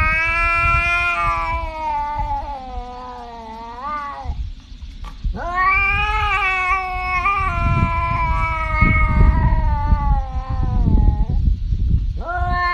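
Tabby cat yowling in long drawn-out calls. The first lasts about four seconds, wavers and ends on a rise; after a short break a second runs about six seconds; a third begins near the end. A low rumble runs underneath the calls.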